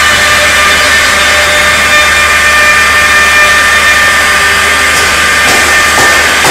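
CNC woodworking machine's router spindle running with a steady high whine over the noise of the machine.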